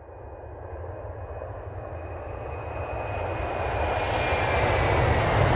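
Airplane engine sound effect: a deep rumble with a faint high whine that drifts slightly lower, growing steadily louder as the aircraft approaches.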